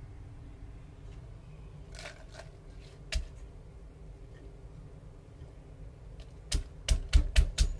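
Rapid, even knocking from kitchen food preparation, about five strikes a second, starting near the end after a few scattered clicks and taps, over a low steady hum.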